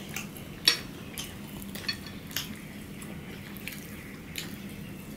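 Two people eating rice with their hands from ceramic plates: a handful of short clicks and smacks of fingers on the plates and of chewing, the sharpest just under a second in, over a low steady hum.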